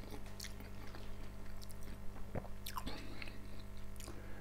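Quiet wet chewing of boiled dumplings, with soft smacks and a few mouth clicks, over a steady low electrical hum, which the owner puts down to a lamp.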